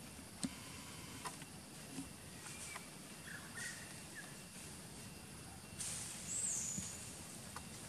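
Quiet forest ambience with scattered light clicks and rustles of dry leaf litter as a monkey walks over it. A brief high chirp comes about halfway through, and a louder rustle with a thin, high falling whistle comes near the end.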